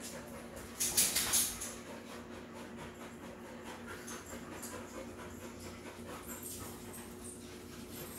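Dog sounds, with a short louder burst of noise about a second in as the tethered dog settles from sitting to lying down, and faint high whining near the end.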